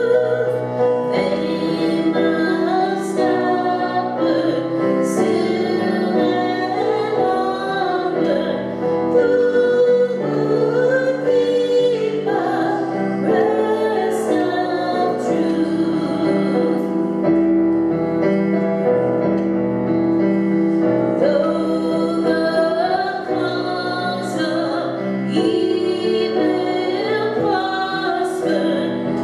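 Voices singing with piano accompaniment, held notes over a changing melody at a steady level.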